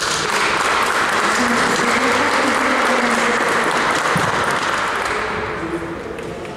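Audience applauding, dying away over the last second or so.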